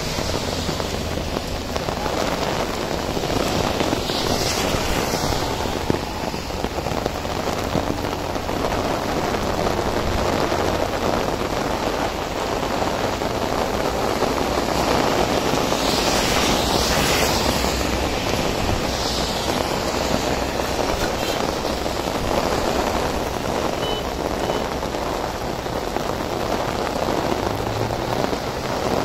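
Heavy rain falling steadily on a road. Louder hissing swells about four seconds in and again around sixteen to nineteen seconds are vehicles passing on the wet road.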